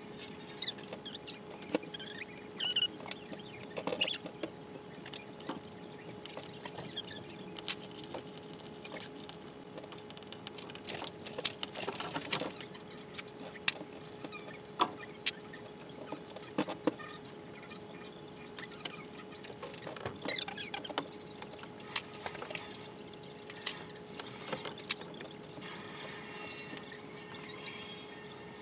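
Wire cutters and strippers working insulated electrical wire: scattered small snips, clicks and rustles at irregular moments, over a steady faint hum.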